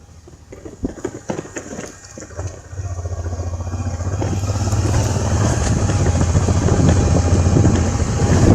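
Scattered knocks and rattles, then a vehicle engine's low steady drone comes in about three seconds in and grows steadily louder, with road and wind noise.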